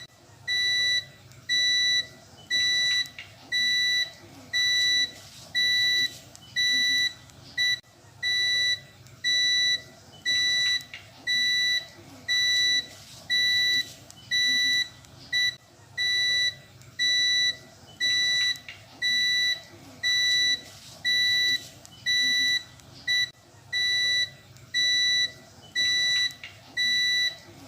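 Prepaid electricity meter beeping its low-credit alarm, the sign that the token credit has run out or nearly run out: a high, piercing beep about half a second long, repeating steadily about once a second.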